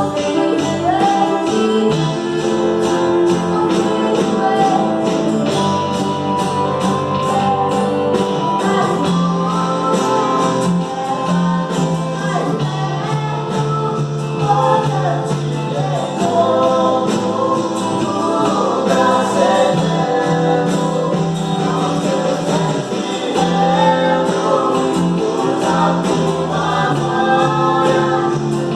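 Gospel worship song played live on acoustic instruments: singing over a strummed acoustic guitar, with a steady strumming rhythm.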